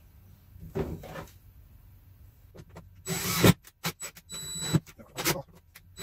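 A drill driving a screw into wood. It starts with a loud run about three seconds in, then comes several quick pulses with a thin whine as the screw is snugged down. Two fainter sounds come about a second in.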